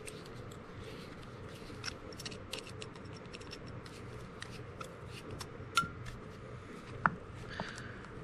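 Light metallic clicks and small scrapes of a screwdriver turning out the screw at the front of a revolver's cylinder crane, with two sharper clicks late on.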